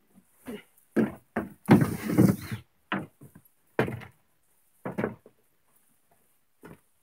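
Knocks and footfalls on a boat's deck and carpeted cabin steps, with a longer scraping slide about two seconds in as the cabin door is opened.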